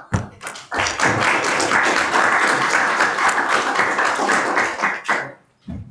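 Small audience clapping, a dense patter of hand claps that starts about a second in and dies away near the end.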